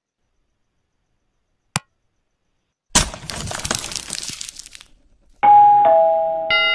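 Sound effects for a subscribe-button animation: a single click, then glass shattering for about two seconds, then a two-note falling doorbell ding-dong followed by a bell ringing in quick repeated strikes near the end.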